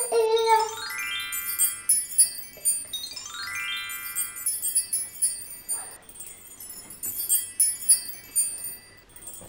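Shimmering wind-chime-like twinkling, with two quick rising glissandos of chime notes, about a second in and again about three seconds in.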